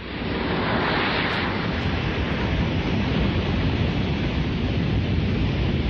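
Anime soundtrack sound effect: a steady rushing, wind-like noise that swells in over the first half second and then holds.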